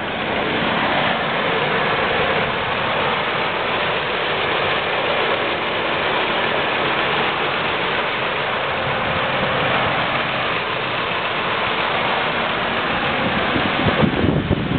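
2002 Saturn SL2's 1.9-litre DOHC four-cylinder engine idling steadily, heard from over the open engine bay.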